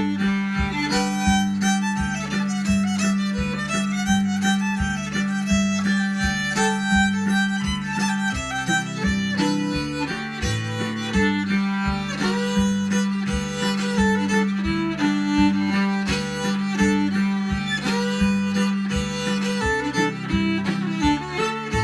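Fiddle playing a tune, a low drone note held under the melody most of the way through.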